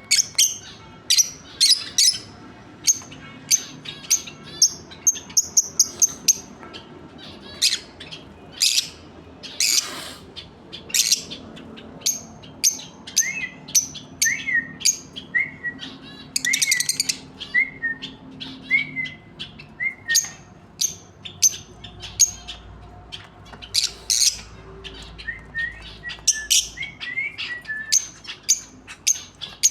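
A pair of lovebirds calling: a rapid, irregular string of shrill, sharp chirps, with runs of lower, shorter notes in the middle and near the end and a couple of longer harsh screeches.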